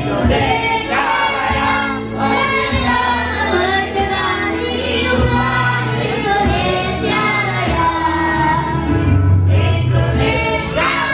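A group of people singing a song together, with sustained low instrumental notes underneath.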